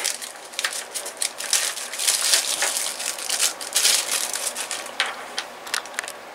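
Clear plastic zip-lock bag crinkling in quick irregular crackles as hands open it and pull out a model engine's exhaust muffler, the crinkling thinning out near the end.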